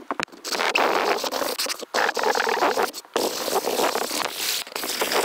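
Sandpaper rubbed by hand over the top surface of a model aircraft part, a steady scratchy rasp in strokes broken by short pauses about every second or so.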